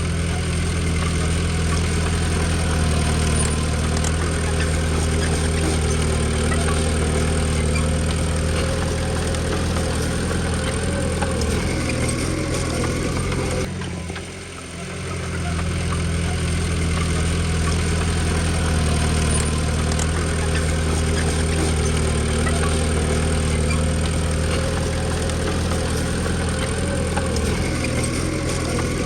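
Diesel engine of a Komatsu D20P bulldozer running steadily, dipping briefly about halfway through.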